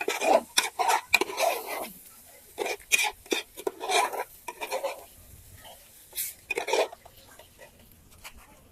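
A spoon scraping and knocking against a cooking pot in irregular bursts as the egusi soup is stirred. The sounds die away in the last couple of seconds.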